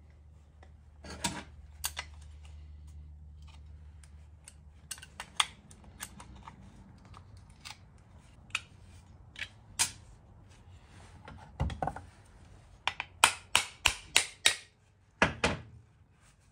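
Metal-on-metal clinks of adjustable wrenches on the rusty nut and bolt that hold a hand-forged brush axe blade to its handle, as the fastener is worked loose. Near the end come about five sharp, quick knocks and then one more loud knock, a hammer driving the bolt out. A faint low hum dies away about four seconds in.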